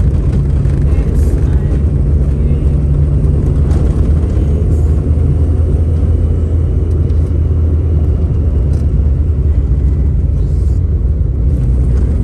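Steady low rumble of a car's engine and tyre noise on a rough road, heard from inside the moving car's cabin.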